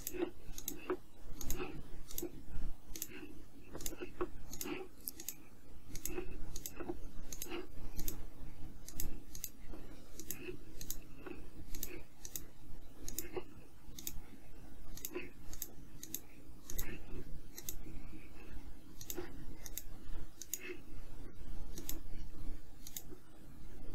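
Computer mouse buttons clicking in an irregular run, about one to three sharp clicks a second, as cables are placed and ports picked from menus.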